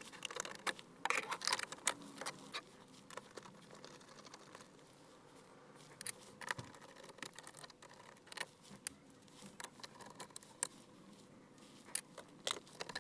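Scattered clicks, taps and light scrapes of hand tools and dashboard plastic being handled, busiest in the first two seconds and again near the end.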